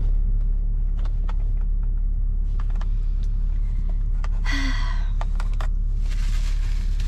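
Steady low rumble of a car cabin, with a few faint clicks and a short rustle about four and a half seconds in.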